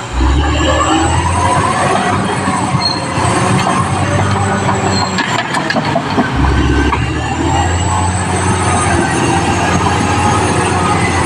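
Caterpillar D6R XL crawler bulldozer working: the diesel engine runs steadily under the clatter and high squeal of its steel tracks.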